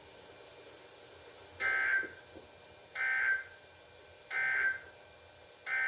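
NOAA Weather Radio SAME data header: three short, screechy digital bursts about a second and a half apart, with a fourth starting near the end. They signal an incoming warning broadcast.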